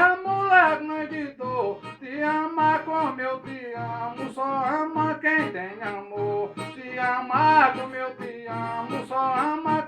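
Brazilian ten-string viola plucked and strummed, accompanying a man singing a sung-poem verse.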